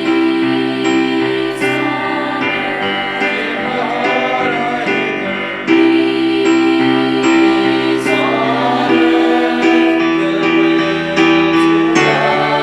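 Music: a song with singing over sustained instrumental accompaniment.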